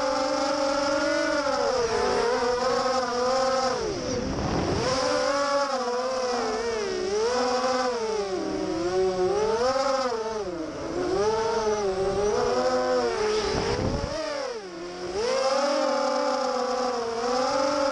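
FPV racing quadcopter's brushless motors and propellers, recorded onboard, whining with a pitch that rises and falls with the throttle. The pitch drops sharply twice, about four seconds in and again near fourteen seconds, then climbs back, as the throttle is cut and punched during flips and rolls.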